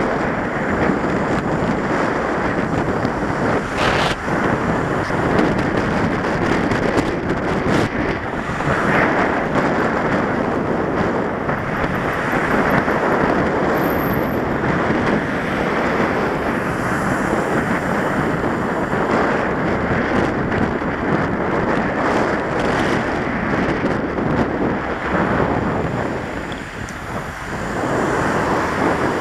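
Steady wind buffeting on a helmet camera's microphone while cycling, with road traffic noise mixed in; it eases briefly late on.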